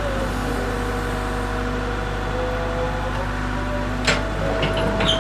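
Case Super L backhoe loader's diesel engine running steadily, with a whine that slowly drifts in pitch and a sharp knock about four seconds in.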